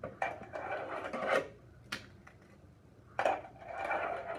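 Tech Deck fingerboard wheels rolling and scraping over a plastic ramp and tile floor in two short runs, with a sharp clack of the board against a hard surface between them. These are 3 flip attempts off the ramp that are not landing.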